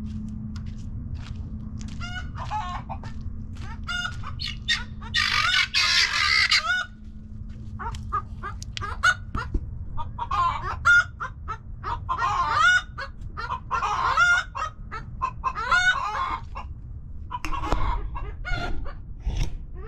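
A backyard flock of chickens clucking and calling, with a harsh, loud squawking burst about five seconds in and a run of repeated calls through the second half.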